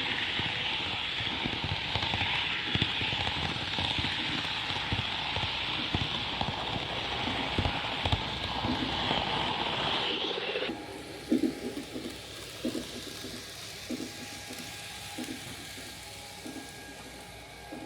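N-scale model train running on layout track: a steady rushing hiss with scattered clicks, which drops abruptly about eleven seconds in to a quieter hiss with irregular clicks and knocks.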